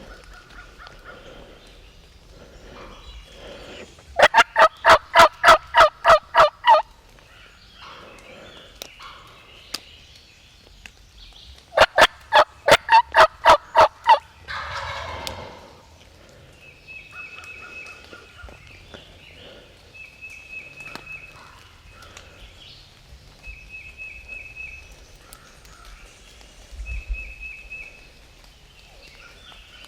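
Wild turkey calling: two loud runs of about ten evenly spaced notes each, several seconds apart, with fainter short high bird notes repeating every few seconds afterwards.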